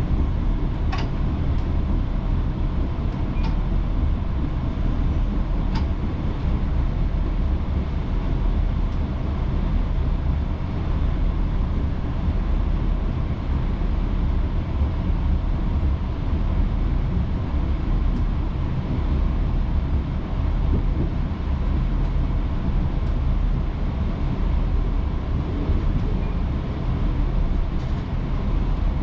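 Chiltern Railways diesel train running, heard from inside the carriage: a steady low rumble of wheels on track and engine, with a few faint clicks in the first six seconds.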